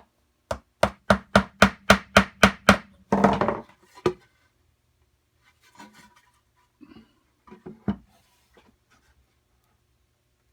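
Hammer driving a nail into the wooden corner joint of a Langstroth hive body: about nine quick, evenly spaced strikes in under three seconds, then a short rough scrape and one more knock, followed by a few fainter knocks.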